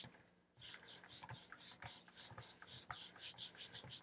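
Cloth scrubbing quickly back and forth over a steam iron's metal soleplate, faint, about five strokes a second, with a brief lull at the start. The cloth is working a baking soda and vinegar paste to lift melted felt off the plate.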